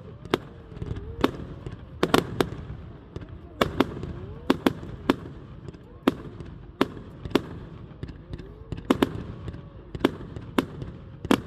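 Fireworks display: a run of sharp bangs and cracks from aerial shells bursting at irregular intervals, about one or two a second, over a low rumble.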